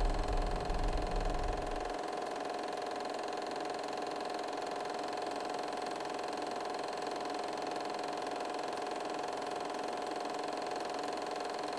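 Steady mechanical whirr and clatter of a running film projector, with a low hum underneath that stops about two seconds in.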